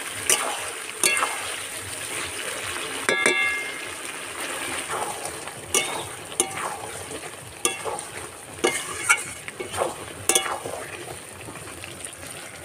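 Duck curry sizzling in a metal karahi as the meat is fried down in its spices, a metal spatula stirring and scraping through it. Sharp clinks of the spatula against the pan come every second or so, one about three seconds in ringing briefly.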